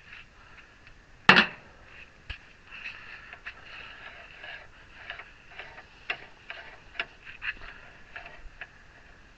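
A single short tack weld, a sharp crackling burst about a second in, followed by scattered light metallic clicks and taps as the workpiece is handled.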